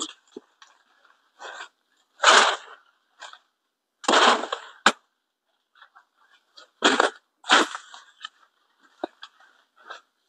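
A curved machete chopping at coffee-tree branches: a handful of sharp, irregular strokes with leaf rustle, four of them loud, spread from about two seconds in to near the end, with lighter knocks between. This is the sound of pruning the coffee trees.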